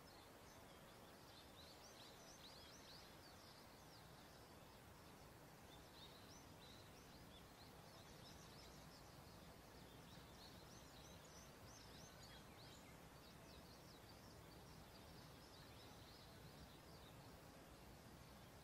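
Near silence: faint outdoor ambience with small birds twittering, many quick high chirps over a low hiss.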